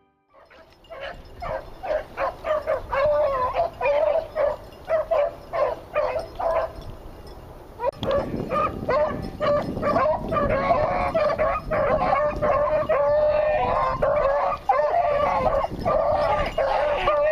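Rabbit-hunting dogs barking and howling in a string of short, repeated calls, which become denser and continuous, like several dogs giving voice together, from about eight seconds in, over a low rumble.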